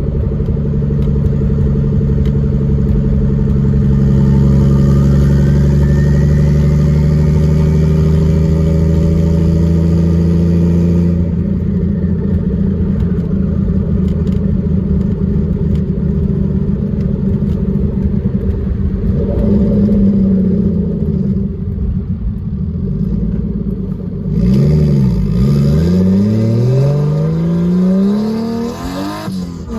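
Turbocharged BMW 325i straight-six with a straight-piped exhaust accelerating hard, its engine note climbing steadily for about ten seconds with a thin rising turbo whistle above it. It then eases off, and later the revs rise and fall quickly several times.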